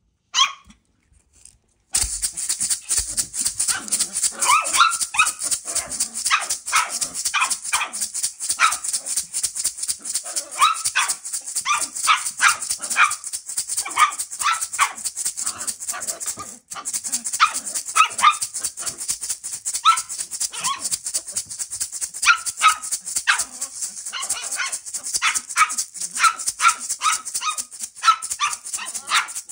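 A pair of gourd maracas shaken in a fast, continuous rattle that starts about two seconds in, while a sheltie puppy barks at them over and over in short, high barks. A single short bark comes just before the rattle begins.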